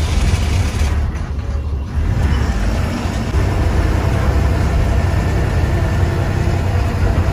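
KSRTC bus running along the road: a steady low engine rumble with road and cabin noise. The noise drops briefly about a second in, then picks back up.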